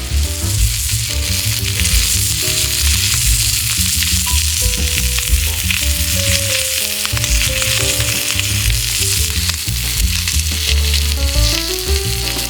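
Food frying in butter on an iron griddle plate, a steady sizzle, with background music and a bass beat underneath.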